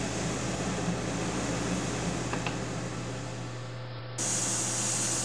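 Kaeser M43 portable compressor running steadily, a constant low hum under an even hiss. It is the compressor that pumps glued polystyrene bead insulation into a cavity wall.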